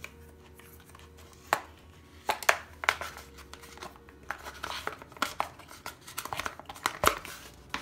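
Handling noise from unpacking: rustling and scraping of a white cardboard packaging insert as a neckband earphone cable and earbuds are pulled out of their moulded slots, with scattered sharp clicks and taps.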